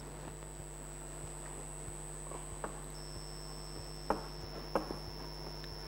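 Chalk on a blackboard while writing: a few faint sharp taps and ticks over steady room hum with a thin high whine.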